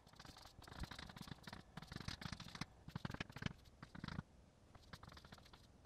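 Chalk writing on a blackboard: a faint, irregular run of short taps and scratching strokes, broken by brief pauses between characters.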